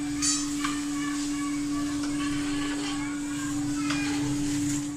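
A steady mid-pitched hum over a hiss, with a few faint high chirps.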